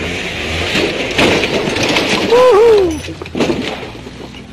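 Side-by-side UTV rolling over backwards off a rock ledge: the machine's body and roll cage clatter and crash against the rock. About halfway through comes a person's loud shout, the loudest sound, followed by another sharp crack of impact.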